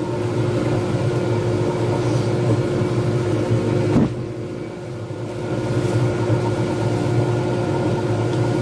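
Lathe motor running steadily with a resin pen blank spinning between centers, a steady hum. A single sharp click comes about four seconds in, after which the hum briefly drops and comes back.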